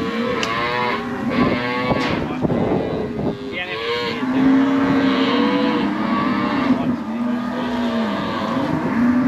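Calves bawling in a steel cattle yard, one long call after another, several voices overlapping. Two sharp knocks sound in the first two seconds.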